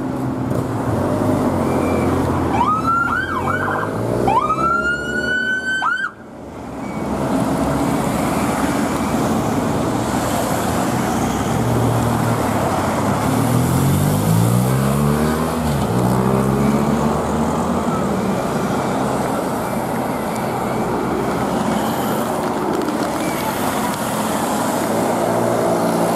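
A siren winding up twice, each time rising in pitch, ending suddenly a few seconds in, over the noise of passing vehicles. Then a steady stream of motor vehicles goes by, their engine notes dropping in pitch as each one passes.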